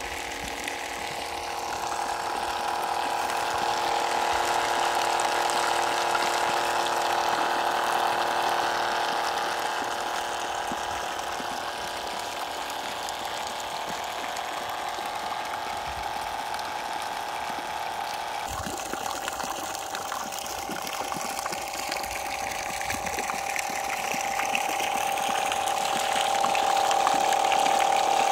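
Small high-speed DC motor driving a miniature centrifugal water pump, running with a steady whine, mixed with the hiss and splash of the pumped water jet. The tone changes slightly about two-thirds of the way through.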